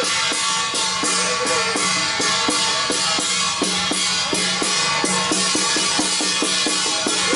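Loud procession percussion music: a fast, steady run of drum strokes with cymbals ringing over it and a few held tones underneath.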